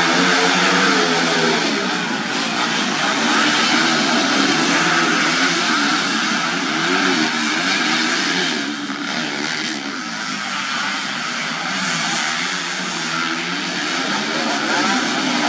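A pack of grasstrack race bikes with underbone (bebek) class engines running hard together. Several engine notes rise and fall over one another as the riders work the throttles and shift gears.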